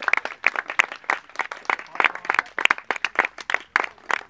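Small audience applauding: many separate hand claps, irregular and overlapping.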